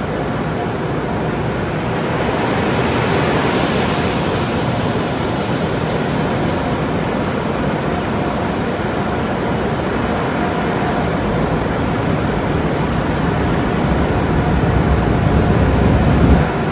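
Automatic car wash heard from inside the car: water and soap spraying onto the windshield while the wash equipment runs, a steady rushing noise that grows brighter for a few seconds early in the pass. Near the end a deeper rumble builds and then cuts off suddenly.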